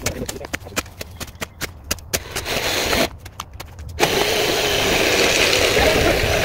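Shovel chopping and scraping into clay soil and roots: a quick run of sharp knocks and scrapes. After a short pause, a loud steady rushing noise begins about four seconds in and continues.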